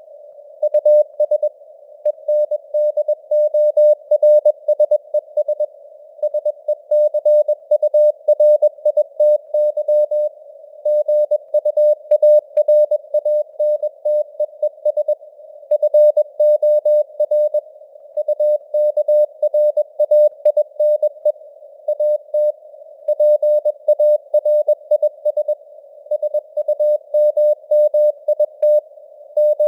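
Morse code (CW) sent at 21 words per minute as a single mid-pitched tone keyed on and off in dots and dashes, with short gaps between letters and longer gaps between words. Under it runs a faint hiss of simulated radio noise, and the signal strength rises and falls with simulated fading (QSB).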